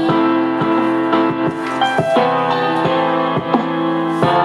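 Instrumental music playing from the Arikami NR-3013 retro wooden speaker: held chords with struck notes at a fairly regular beat.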